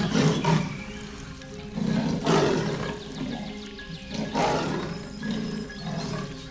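Added jungle sound effect of a big cat roaring, three roars about two seconds apart, layered over background music.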